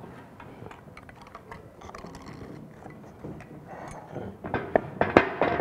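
Handling noise of a galvanized steel pipe and wooden support blocks being shifted on a workbench: faint clatter, then a few sharp knocks near the end.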